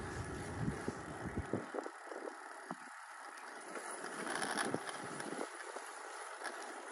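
Wind buffeting the microphone and bicycle tyres rolling over rough asphalt, with scattered small clicks and rattles. A heavy wind rumble dies away after about a second and a half.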